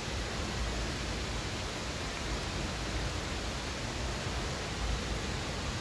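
Steady rushing of a mountain stream: an even hiss of flowing water with a low rumble beneath it.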